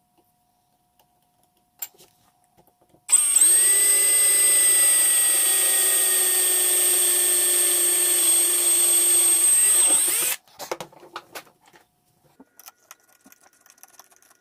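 Electric hand drill running steadily for about seven seconds, starting about three seconds in, boring a pilot hole for a self-tapping screw through a sheet-metal bracket on a circular saw's blade guard. Light clicks and rattles of handling follow after it stops.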